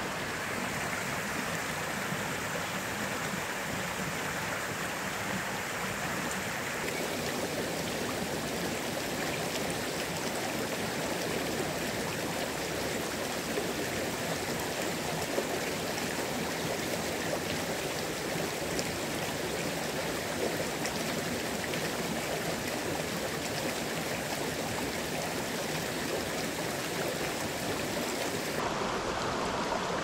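Mountain headwater stream flowing over rocks, a steady rushing of water whose tone shifts abruptly about seven seconds in and again near the end.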